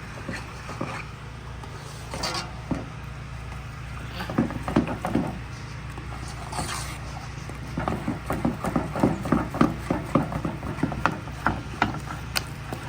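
A pot spoon stirring and scraping a thick mixture in a cooking pot to keep it from getting lumpy, with irregular knocks and scrapes that come thicker in the second half, over a steady low hum.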